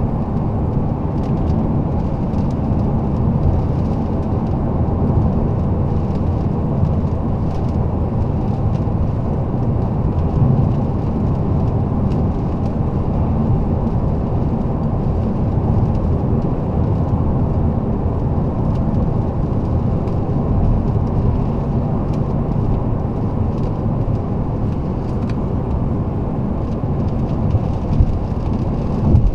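Alfa Romeo 159 2.4 JTDm's five-cylinder diesel and tyres heard from inside the cabin while driving: a steady low rumble of engine and road noise. A couple of brief knocks near the end.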